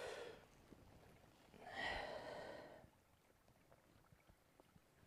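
Near silence broken by two soft breaths of a person, one at the start and a louder one, about a second long, two seconds in, with faint small ticks between.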